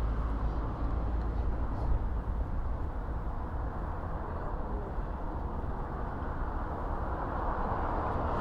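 Road traffic passing through an intersection: a steady wash of car and tyre noise, growing a little louder near the end as another vehicle approaches.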